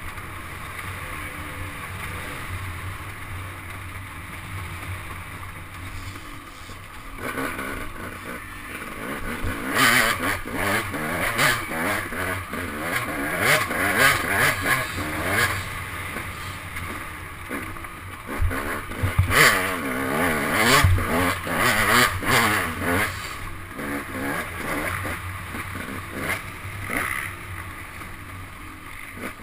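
Dirt bike engine racing along a rough woods trail: fairly steady at first, then revving hard in repeated surges, with sharp knocks and clatter as the bike goes over ruts and roots, easing off near the end.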